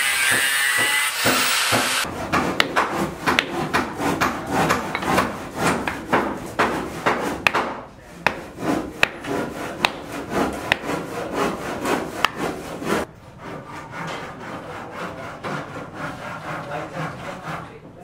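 An angle grinder cutting steel rebar, a steady high grinding with a wavering pitch, stops abruptly about two seconds in. After that come irregular sharp metal clinks and scraping as the rebar is worked by hand, quieter for the last few seconds.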